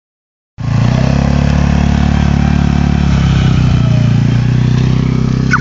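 Small youth ATV's engine running steadily as the quad drives along, starting about half a second in.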